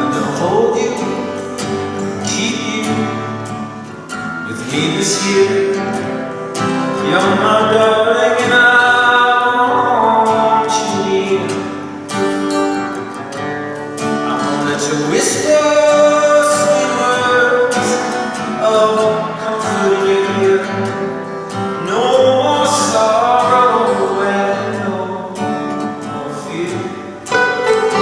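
Live acoustic band music: plucked strings, guitar among them, under a sung melody.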